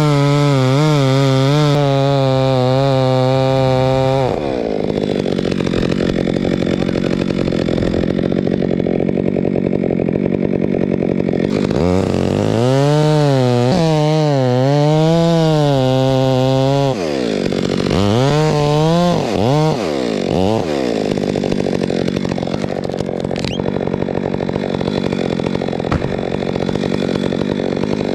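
Two-stroke chainsaw running at high revs while cutting through the fir trunk, its engine pitch rising and falling several times as it works the cut.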